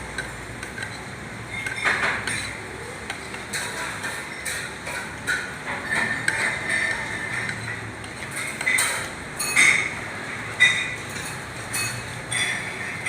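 Scattered light clinks and taps of plates, glasses and cutlery during a meal, over steady restaurant background noise.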